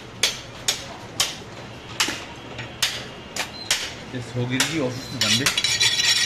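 Butcher's large knife chopping through goat shoulder and ribs on a wooden stump block: a series of sharp knocks at uneven intervals, roughly one every half second to second.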